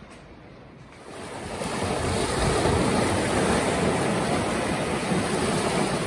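Small waves washing in over rocks and a sandy beach, a steady rush of surf that swells up about a second in.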